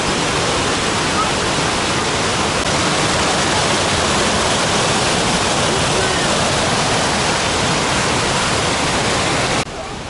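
Düden River water rushing white over rock ledges: a loud, steady rush of water. Near the end it drops suddenly to a quieter hiss.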